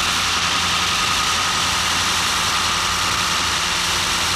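Large carpet cropping machine, which shears a wool carpet's pile level like a giant lawnmower, running with a steady mechanical noise and a constant low hum.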